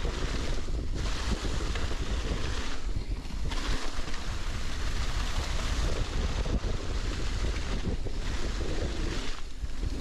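Wind rushing over the microphone and tyres rolling through dry fallen leaves on a moving mountain bike, a steady rumbling hiss that dips briefly about a second in, around three seconds and near the end.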